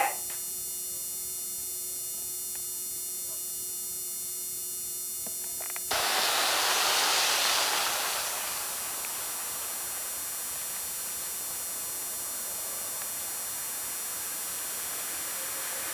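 Steady electrical mains hum with hiss under a still shot. About six seconds in it cuts abruptly to a louder, steady rushing noise of outdoor street ambience. The rushing swells for about two seconds, then settles to an even hiss.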